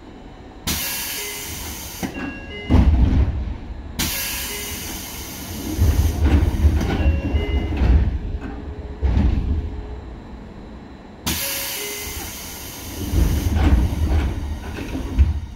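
Running sound of a Seibu 2000 series electric train, heard from directly above the car's line breaker. A sharp hiss sets in suddenly three times: about a second in, at about four seconds and near eleven seconds. Heavy low rumbling and clunks come between the hisses.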